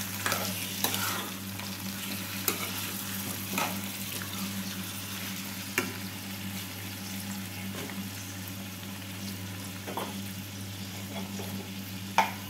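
Raw chicken pieces frying in ghee with browned onions in a steel kadhai, sizzling steadily while a metal spatula stirs them, scraping and knocking against the pan now and then. The loudest knock comes near the end.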